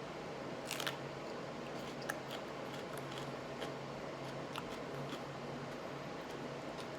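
Serrano peppers being bitten and chewed: scattered small crunches and wet mouth clicks, a cluster of them just under a second in, over a steady low hum.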